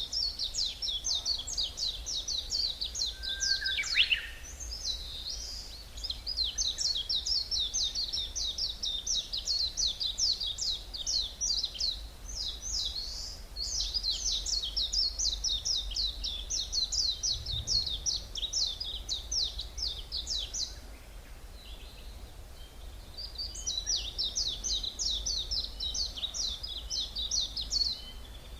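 Forest songbirds singing long runs of rapid, high, chattering notes, in several phrases separated by short pauses. About 4 seconds in there is a brief different call, and a steady low rumble runs underneath.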